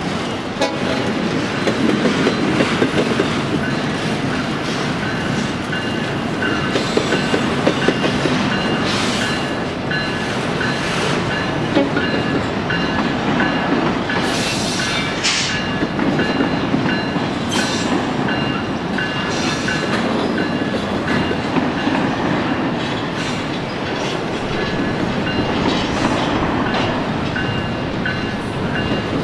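Union Pacific double-stack intermodal freight train rolling past: a steady heavy rumble of the well cars with wheel clatter over the rail joints. A faint high steady whine runs through it, with brief sharper high-pitched squeals from the wheels now and then.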